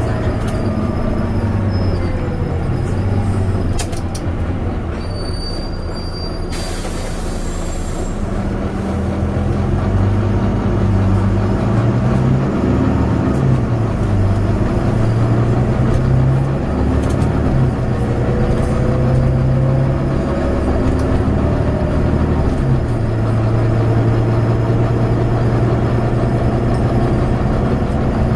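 Volvo B9TL double-decker bus engine running under way, heard on board. Its pitch rises and drops several times through the middle and then holds steady near the end, with a short hiss about a quarter of the way in.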